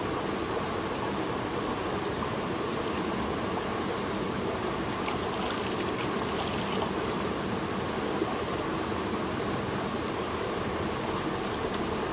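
Shallow rocky stream running steadily, with a few brief splashes about halfway through as the water is stirred by hand.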